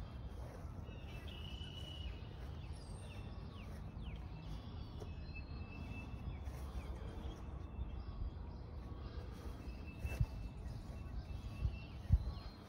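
Birds chirping over a steady low outdoor rumble, with a few footsteps near the end.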